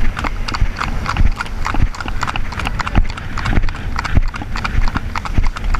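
Horses' hooves clip-clopping on a tarmac road at a brisk pace, with the beats of the ridden horse and the one just ahead overlapping in a quick, uneven patter.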